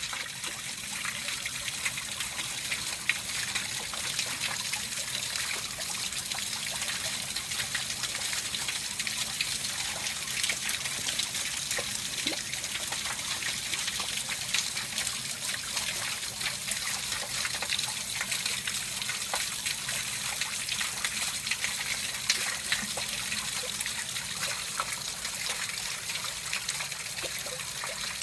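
Small waterfall of hot-spring water falling and splashing steadily into its plunge pool, a continuous hiss dotted with small splashes.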